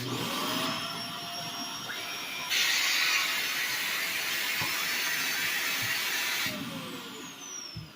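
Shark Navigator NV352 upright vacuum cleaner switched on, its motor spinning up with a rising whine and running, with a much louder hissing rush from about two and a half seconds in until about six and a half seconds in. It is then switched off and winds down with a falling whine. The owner calls the sound a really weird noise.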